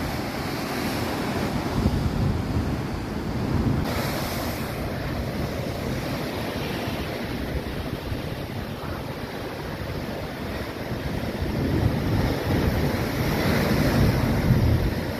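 Ocean surf churning and breaking against lava rocks at the foot of a sea cliff, with wind buffeting the microphone. The surf swells louder after about twelve seconds.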